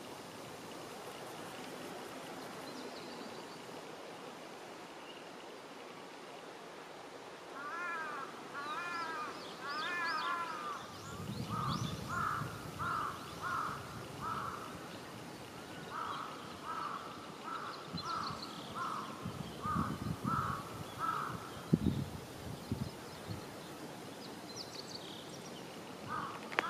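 A distant crow cawing in two long runs of evenly spaced caws, about one and a half a second, after a few shorter arched calls. Low thumps sound underneath.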